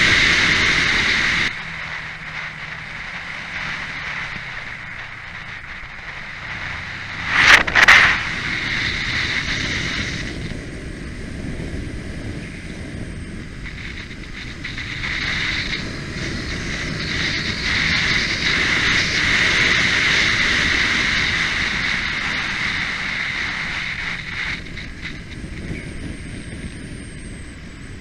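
Kawasaki Ninja motorcycle engine heard from an onboard camera with heavy wind on the microphone, ridden on a race track. The engine and wind noise drop off suddenly about a second and a half in as the throttle closes. Two sharp loud bursts come about seven and a half seconds in, then the engine builds again and eases off near the end.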